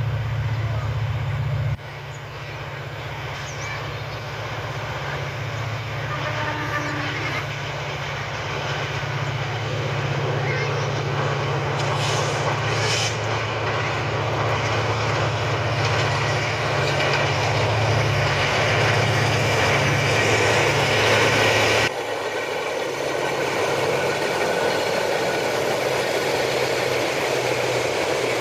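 Passenger train hauled by an EMD GT38ACL diesel-electric locomotive running through a station without stopping: a steady low engine drone over wheel and rail noise that grows louder to a peak about twenty seconds in. The low drone cuts off abruptly about 22 seconds in, leaving the rumble of the passing train.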